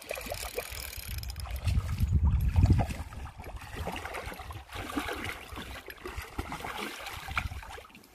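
Water splashing and sloshing, irregular and loudest about two to three seconds in, as a German wirehaired pointer wades in a shallow river and a hooked carp thrashes at the surface in front of it.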